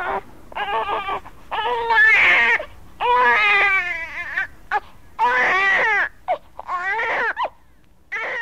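Infant crying in a string of short wailing cries, each a second or less, with brief breaths between them.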